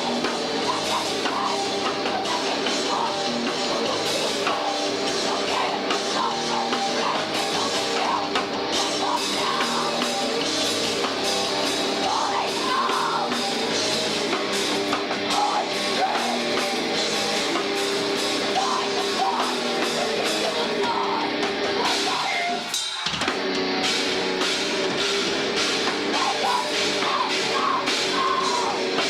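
A rock band playing live: a heavy rock song driven by a full drum kit, with a short break about 23 seconds in before it carries on.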